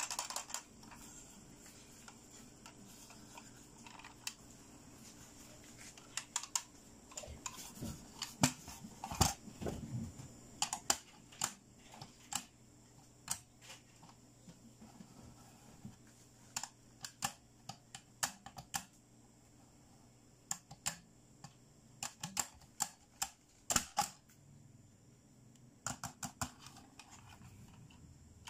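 Irregular sharp plastic clicks and taps, some in quick runs, from a hippo dentist toy game as its plastic teeth and jaw are poked and pressed with a thin plastic stick.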